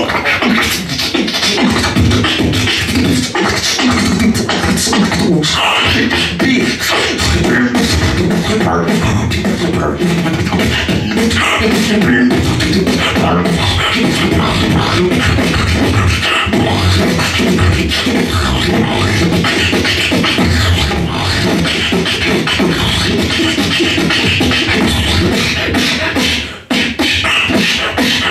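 Solo beatboxing into a handheld microphone, amplified through a PA: a dense, unbroken run of mouth-made drum sounds, deep thumps with sharp hissing strokes above them. It breaks off briefly a couple of seconds before the end, then carries on.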